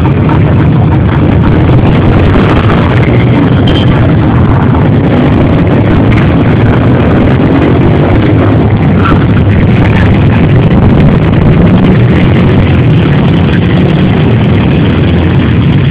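Engines of several off-road motorcycles and ATVs running together as they ride slowly past, a loud, steady blend of engine noise.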